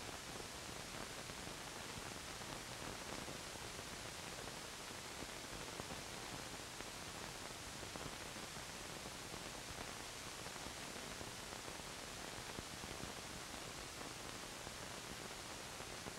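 Steady hiss of an old film soundtrack, with no other sound standing out.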